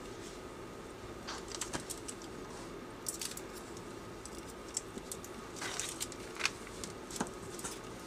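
Short scratchy strokes of a blade and a flat burnishing tool on screentone: the tone sheet being cut along a metal ruler and rubbed down onto a manga page. Under it runs a steady low hum.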